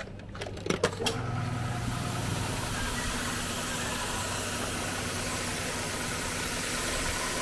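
A few clicks as a coin goes into the carwash vending machine's coin slot, then about a second in the pressure washer's pump motor starts and runs steadily, with the hiss of a high-pressure water jet spraying from the nozzle.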